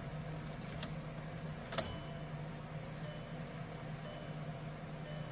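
2012 VW Jetta TDI's electric fuel pump humming steadily with the ignition switched on, priming the diesel fuel system after a fuel filter change. A single sharp click comes about two seconds in, and a short electronic tone repeats about once a second from about three seconds in.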